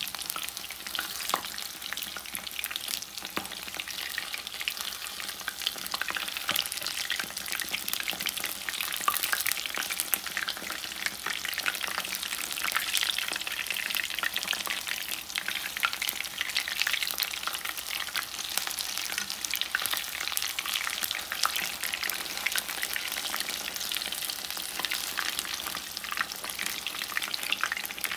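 Batter-coated tilapia fillets frying in hot oil in a pan: a steady, dense sizzle and crackle with many sharp pops.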